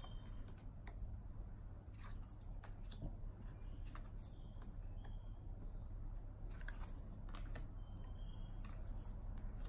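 Stiff tarot cards being handled one by one: short clicks and slides as cards are lifted off the deck and laid down on a wooden table, in two clusters about two and seven seconds in, over a low steady hum.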